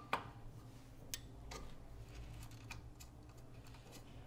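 A few scattered light clicks and taps of metal tools and fittings being handled inside an espresso machine's open frame, over a faint steady low hum.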